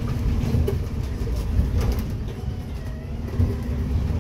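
Inside a moving city bus: a steady low rumble of the engine and road, with occasional short clicks and rattles from the bus's fittings.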